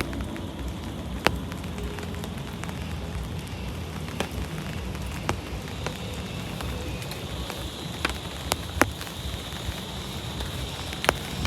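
Steady rain falling, with scattered sharp ticks, about one a second.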